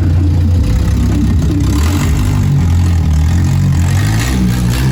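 Saveiro pickup's newly installed car sound system pumping heavy, loud bass, its low notes stepping in pitch, over the car's engine.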